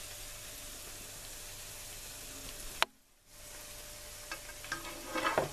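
Dosa frying in a hot non-stick pan, a steady sizzle. A sharp click about three seconds in is followed by a brief drop-out, then the sizzle returns with a few light knocks near the end.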